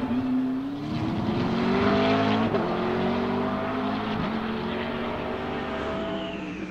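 McLaren 650S GT3 race car's 3.8-litre twin-turbo V8 accelerating out of a corner, its pitch climbing over the first couple of seconds, then fading as the car pulls away.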